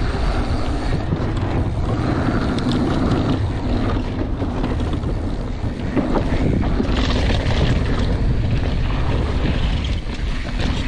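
Mountain bike descending a dirt and gravel trail: wind buffets the camera microphone over steady tyre rumble and rattling from bumps. About six seconds in there is a short clatter as the tyres roll across wooden boardwalk planks.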